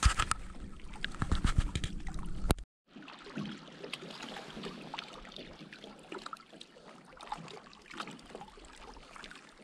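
Water trickling and lapping with small scattered clicks and knocks of handling. For the first two and a half seconds a louder low rumble runs under rapid clicks, then it cuts off suddenly.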